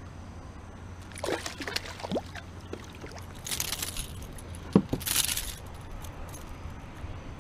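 A small fish on the line splashing at the surface beside a kayak as it is landed: scattered splashes, then two short bursts of pouring, dripping water and a sharp knock a little past halfway.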